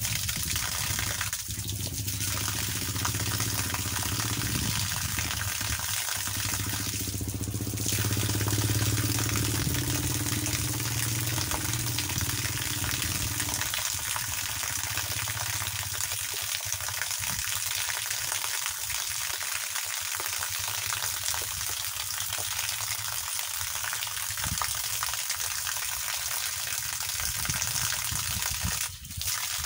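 A water stream from a hose pipe pouring and splattering steadily onto a person bathing and the ground, a continuous hissing spray. The sound is deeper and fuller for roughly the first half, then thins to a lighter hiss.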